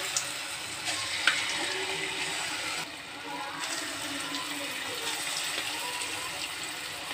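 Lumps of idli-batter punugulu mix frying in hot oil in a kadai, a steady sizzle as the batter is dropped in. Two sharp clicks come about a second apart near the start.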